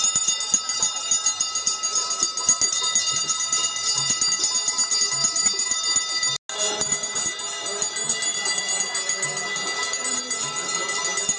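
Many aarti bells ringing fast and continuously in a dense, shimmering clangour, with the sound cutting out for an instant about six seconds in.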